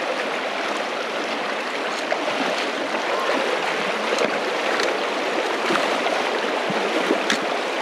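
A river's water rushing steadily.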